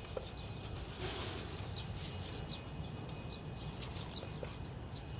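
Quiet outdoor background: a steady low hum with short, faint high chirps every second or so and a few light clicks.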